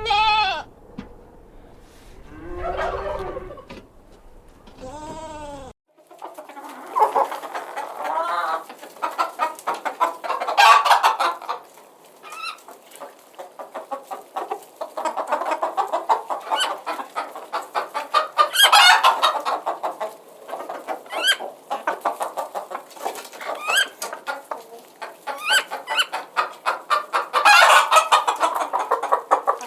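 A few separate pitched animal calls, then from about six seconds in a flock of chickens clucking busily, with rapid short clucks and sharp, higher squawks.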